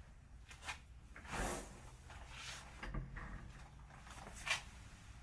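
A few soft knocks and rustles of things being handled close to the microphone, the sharpest a single knock about four and a half seconds in.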